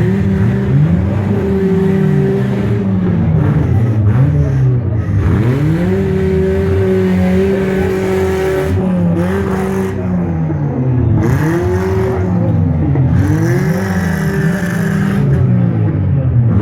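Several demolition derby cars' engines revving, their pitches rising and falling over and over against one another.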